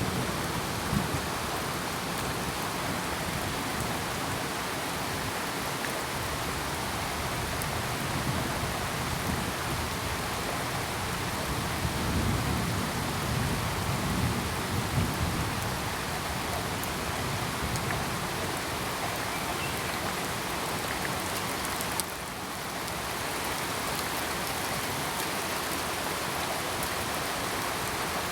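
Steady rain falling hard, an even hiss, with low rumbles of distant thunder swelling in the first half. A sharp click and a brief drop in level come about three-quarters of the way through.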